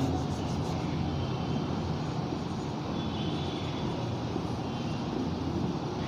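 Steady rushing background noise, with faint squeaks of a marker writing on a whiteboard about three seconds in.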